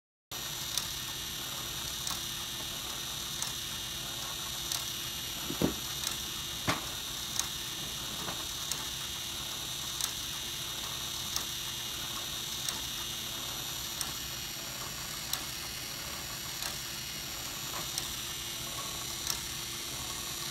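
LEGO Technic gear-and-crank mechanism driven by a LEGO electric motor: a steady whir and whine with a sharp click about every 1.3 seconds as the shaft turns. Two louder knocks come about a third of the way in.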